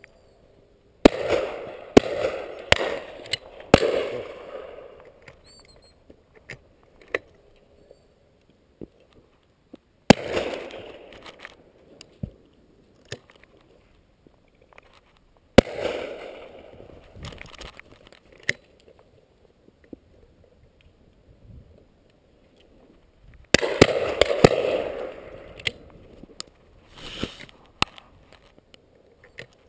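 Shotgun shots, each followed by a fading echo. There are four shots in quick succession in the first few seconds, single shots about 10 and 15 seconds in, and another quick burst of shots near the end.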